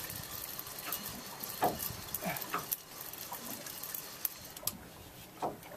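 Spinning fishing reel being cranked to wind in a hooked fish: soft, irregular clicks and ticks over a faint hiss.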